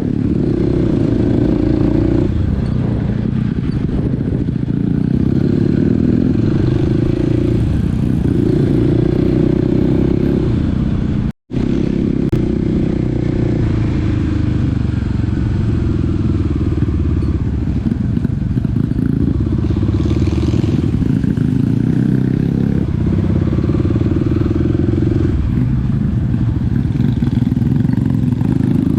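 Small dirt bike engine running under way, its revs rising and falling in steps as the bike is ridden along a rough forest trail. The sound cuts out completely for an instant about eleven seconds in.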